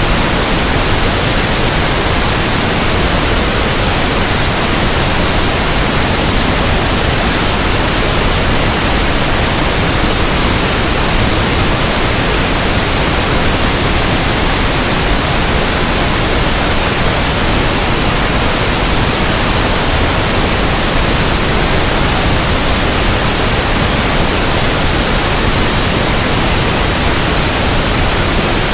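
Steady pink noise: an even, unchanging hiss with no events.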